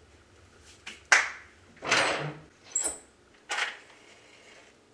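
A match struck four times against a matchbox in quick scratches about a second apart, the first the loudest, before it catches alight.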